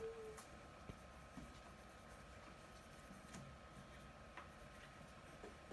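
Quiet room with the faint scratching of pencils on paper as children write, and a few soft ticks and taps; a faint steady high hum underneath.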